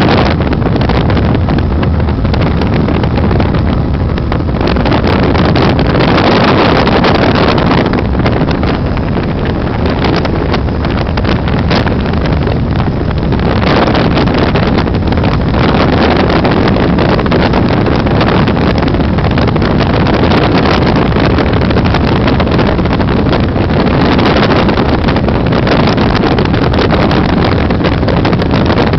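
Helicopter engine and rotor running in flight, a loud steady noise with wind on the microphone.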